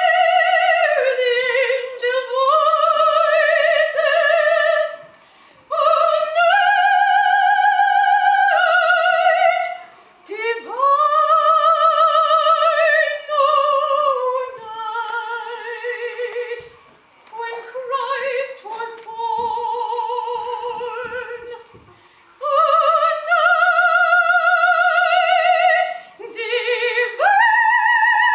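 A solo female soprano singing in a classical style, with a wide vibrato on long held high notes. Her phrases are separated by brief pauses for breath, and a softer, lower passage comes in the middle.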